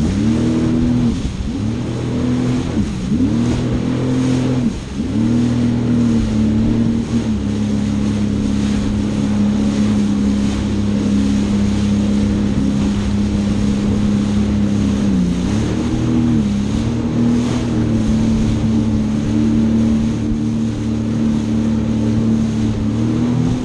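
Jet ski engine running at speed over a rush of wind and water. Its pitch dips and rises with the throttle several times in the first seven seconds or so, then holds steady, with a brief dip about two-thirds of the way through and another at the end.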